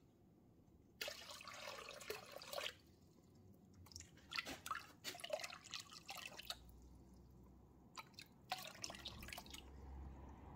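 Water tipped off a plastic gold pan into a rubber tub, splashing and dripping in three short spells, to leave the heavy mercury behind in the pan.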